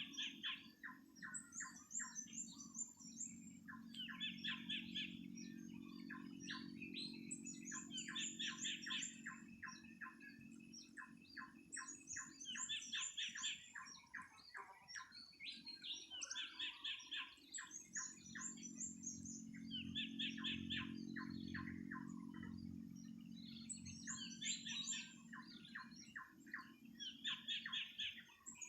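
Birds calling in repeated bursts of rapid, chattering notes, a phrase every three or four seconds, with high trilling notes above them. A low, steady hum runs underneath, swelling twice and fading.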